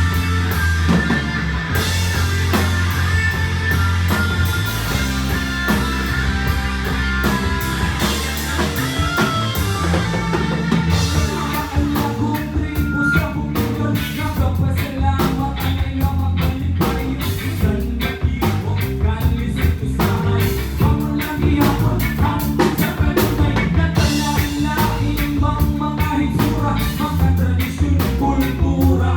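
Live rock band playing with electric guitar, bass and drum kit keeping a steady beat, with some singing.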